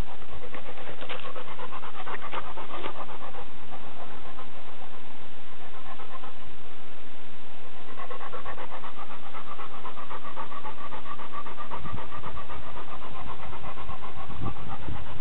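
Dog panting in a quick, steady rhythm, with some low rumbles near the end.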